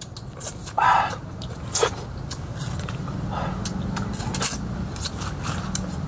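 A man chewing a mouthful of wild honeycomb, with irregular wet mouth clicks and smacks as he licks his fingers.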